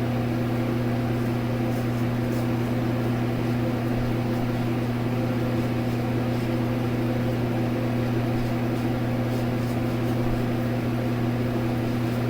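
Steady electric motor hum with a low buzzing tone, like a fan running, unchanging throughout.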